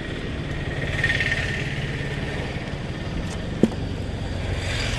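Motor vehicle engine running steadily, with a higher whine swelling about a second in and again near the end, and a single sharp click a little past halfway.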